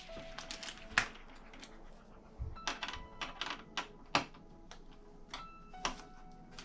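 Sharp, irregular clicks and taps of a Threadripper torque screwdriver working the TR4 socket's retention-frame screws loose, metal on metal. The loudest click comes about a second in, with a quick run of them a little later.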